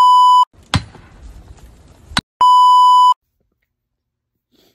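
A steady electronic test-tone bleep, the kind played with TV colour bars, sounds twice, each time for under a second. Between the two, a short stretch of faint noise opens and closes with a click.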